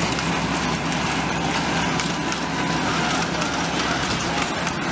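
Open passenger cars of a miniature ride-on train rolling past on their small-gauge track: a steady rattle of wheels on rail with many small clicks and clacks.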